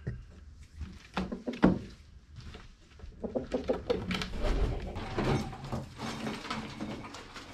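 Chickens clucking and calling, with a couple of sharp knocks between one and two seconds in.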